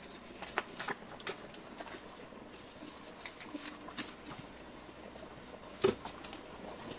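Sheets of printed paper being handled on a desk: irregular short rustles and crinkles as they are gathered and flexed by hand, with one louder sharp sound near the end.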